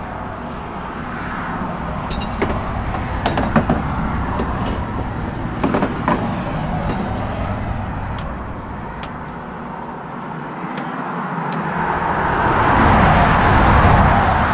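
Highway traffic passing close by: a rushing noise that swells and fades, building to a loud pass by a car near the end. A few short metallic clinks sound in the middle.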